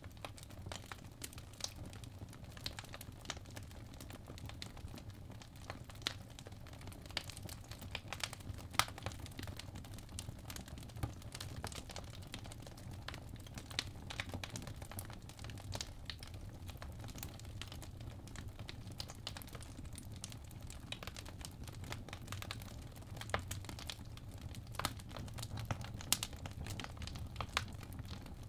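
Crackling fireplace ambience recording: irregular soft pops and crackles of burning wood over a steady low hum of the fire.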